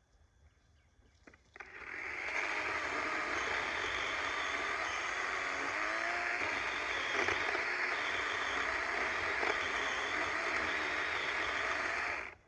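DeWalt 20V battery chainsaw cutting into a tree trunk: a steady electric whir of the chain through wood that starts about two seconds in and stops abruptly near the end.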